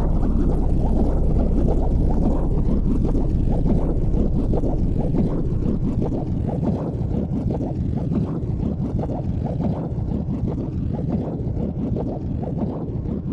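Wind buffeting the microphone: a continuous, low, fluttering rumble that eases slightly toward the end.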